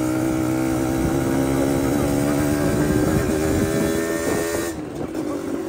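Yamaha DT two-stroke motorcycle engine running under way at a steady pitch, heard from the bike itself; it gets quieter near the end.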